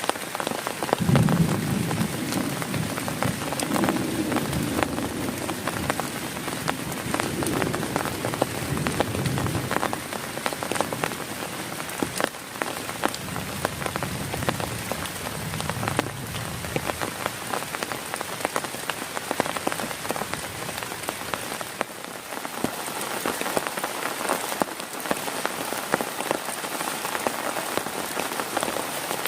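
Heavy rain drumming on a tent's fabric: a dense, steady patter of drops, with a low rumble that swells and fades through the first half.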